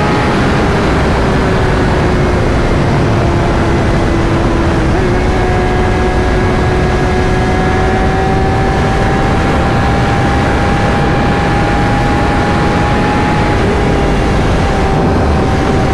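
Sportbike riding at a steady speed: loud wind rush on the helmet-mounted microphone, with the engine's note held nearly steady underneath, shifting slightly about five seconds in.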